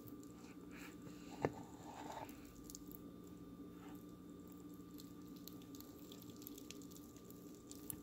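Faint drips and small clicks from wet potato pasta clumps sitting in a perforated plastic colander, over a steady low electrical hum. One sharp tick about a second and a half in is the loudest sound.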